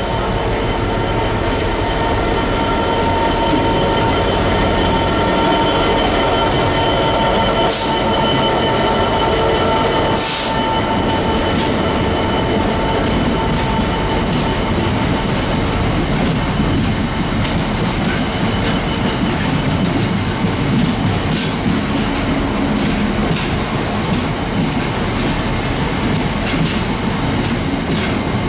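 A train running through the station, with steady wheel and rail noise throughout. Thin, steady high whining tones run through roughly the first twelve seconds, two sharp clicks come about eight and ten seconds in, and smaller scattered clicks follow later.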